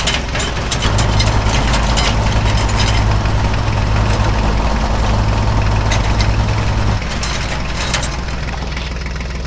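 A heavy engine idling with a steady low hum, louder from about a second in until about seven seconds in, with scattered light clicks over it.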